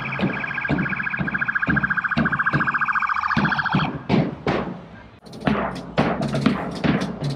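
A police vehicle's electronic siren sounding a rapidly pulsing tone for about the first four seconds, then cutting off. Under it a street drummer beats a bass drum with a mallet, and the beats keep going after the siren stops.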